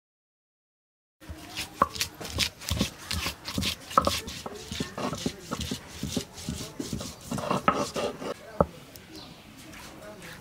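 Garlic cloves being crushed on a flat stone grinding slab (shil) with a hand-held stone roller (nora): a quick run of stone-on-stone knocks and grinding rubs that starts a little over a second in and stops about eight and a half seconds in.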